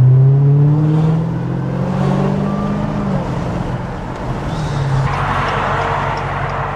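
Dodge Challenger Hellcat's supercharged V8 heard from inside the cabin as the car pulls away. The engine note rises steadily for about three seconds, then settles to a steadier drone.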